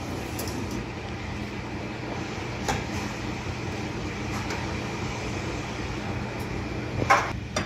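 Steady fan-like hum from the open oven while a metal loaf pan is slid out over the oven rack, with a light knock about three seconds in and a louder metal clatter near the end.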